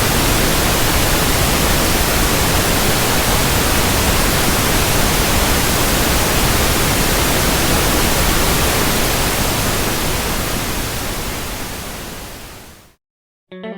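Pink noise test signal played through a sound system for a sound check: a loud, steady hiss that fades out over the last few seconds and cuts to silence. Music with guitar starts just at the end.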